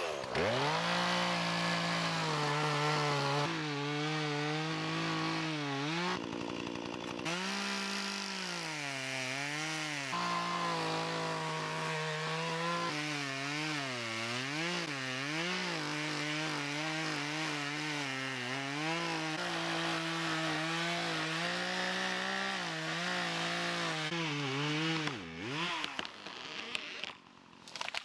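Poulan gas chainsaw cutting into the trunk of a silver maple, its engine pitch dipping and recovering again and again as the chain bogs in the wood. The engine winds down sharply near the end.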